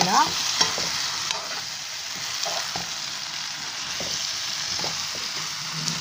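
Fried chicken pieces and a thick vegetable sauce sizzling in a pan as a metal spoon stirs them through, with scattered light scrapes and knocks of the spoon against the pan.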